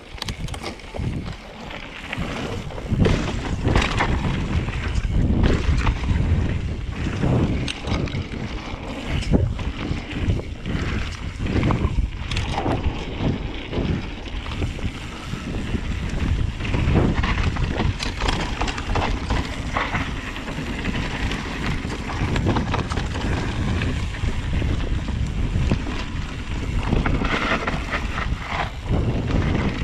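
Wind buffeting the camera microphone, with the continual rattle and irregular knocks of a Vitus Sommet mountain bike riding down a rough trail.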